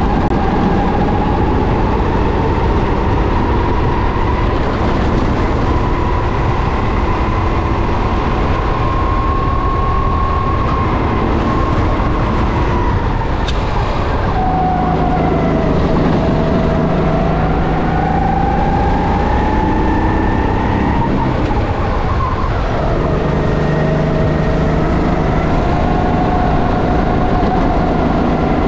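Racing kart engine running hard, its pitch climbing steadily and then dropping sharply twice as the kart slows for corners before rising again, over a heavy low rumble.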